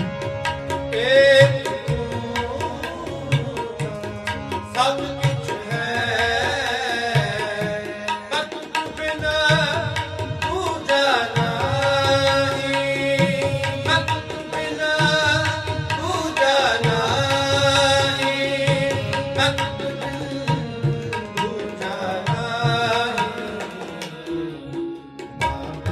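Sikh shabad kirtan: tabla playing a steady rhythm under held harmonium notes, with a voice singing melismatic phrases in stretches.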